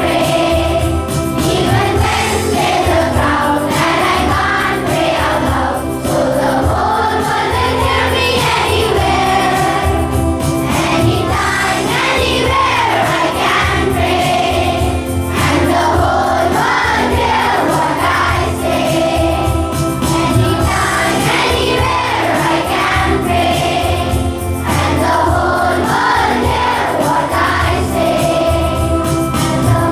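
A group of voices singing a morning prayer song together, with steady instrumental accompaniment underneath.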